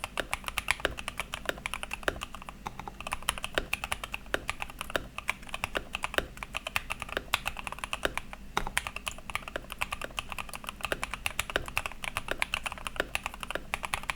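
Typing test on a Rexus Daxa M64 60% mechanical keyboard fitted with SP-Star Yanyu switches and PBT Cherry-profile keycaps, its case padded with tissue and EVA foam: fast, continuous typing with several keystrokes a second. Some of its case screws are loose, which the owner says makes the board wobble under the fingers.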